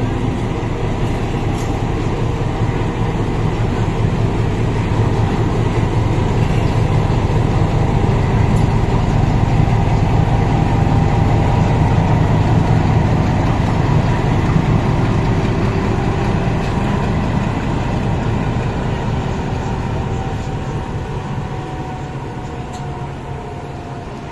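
Indian Railways WDS-6 diesel shunting locomotive engine running with a steady low rumble, heard from a passing train. The rumble swells toward the middle and fades away near the end.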